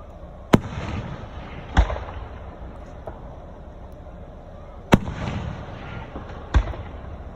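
Aerial fireworks going off: four loud bangs in two pairs, each pair a sharp report with about a second of crackle after it, followed a little over a second later by a deeper boom.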